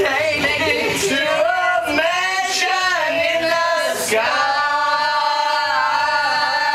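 A small group of women singing a song together, closing on one long held note over the last couple of seconds.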